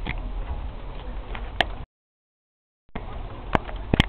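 Scattered raindrops falling and ticking onto surfaces, single sharp ticks over a steady background hiss. The sound cuts out completely for about a second midway, then resumes.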